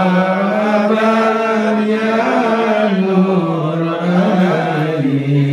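A man's voice chanting in long held notes that slide slowly up and down in pitch, phrase after phrase.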